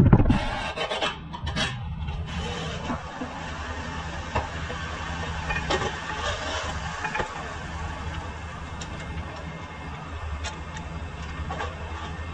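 A car engine starts with a loud surge whose pitch falls away, then runs at a steady idle, with a few faint clicks over it.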